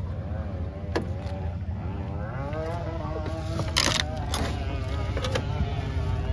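Toyota Cressida drift car with a swapped 3S-GTE turbo four-cylinder running with a steady low hum and a wavering whine over it. A car door latch clicks about a second in, and there is a short clatter near four seconds.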